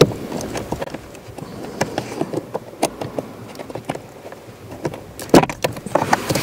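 Plastic clicking and rattling of a wiring-harness connector being worked off a blower motor resistor while its locking tab is pushed in, with louder clicks a little after five seconds as the connector comes free.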